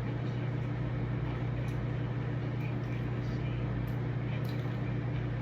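A steady low hum with one constant deep tone, unchanged throughout, over a faint even background noise.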